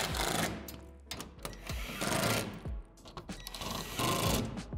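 Cordless drill driving screws into a plastic shed wall panel, running in three short spells of about half a second to a second each, over faint background music.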